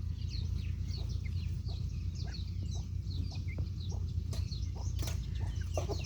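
A group of baby chicks peeping without pause: many short, high-pitched chirps falling in pitch, overlapping one another, over a steady low hum. The keeper takes the peeping for hunger. A few sharp clicks come in about four to five seconds in.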